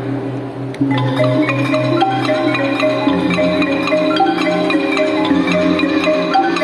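Marching band front ensemble playing a quick mallet melody on marimbas and other keyboard percussion over a low held bass line. A short lull comes just under a second in, then a sharp strike brings the notes back.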